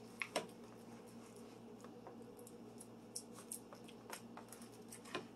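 Faint squishing and light taps of hands pressing raw meatloaf mixture into a metal loaf pan, a handful of short soft clicks over a steady low hum.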